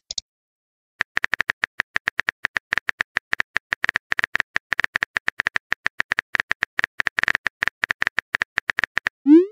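Simulated phone-keyboard tap clicks from a texting-story app, a rapid uneven run of short, sharp ticks as a message is typed out, starting about a second in. A short rising whoosh near the end marks the message being sent.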